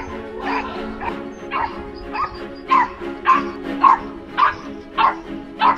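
A small dog yapping over and over, about two sharp yaps a second, as it fends off an attacking coyote, over background music with a held chord.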